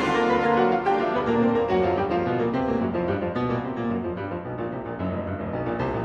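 Background piano music, one note after another, growing slightly quieter toward the end.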